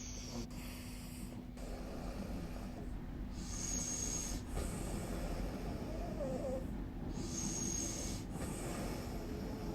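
A sleeping person snoring softly through a Nastent nasal stent: slow, noisy breaths that swell and fade every couple of seconds.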